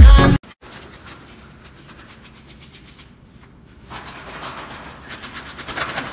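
Electronic dance music cuts off abruptly about half a second in. Faint room noise follows, with a quick run of soft ticks and rubbing that grows a little louder near the end.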